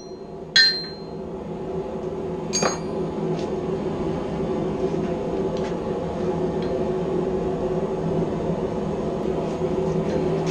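Hammer blows on a hot chisel held on steel at the anvil, two loud metallic rings about half a second and two and a half seconds in, then a few faint clinks. Under them runs a steady droning hum that grows louder over the first few seconds and then holds.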